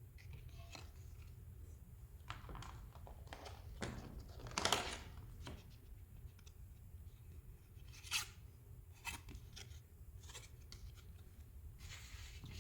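Trading-card packaging being handled by hand: scattered rustles, scrapes and small clicks, loudest about five seconds in, with two sharp clicks later on.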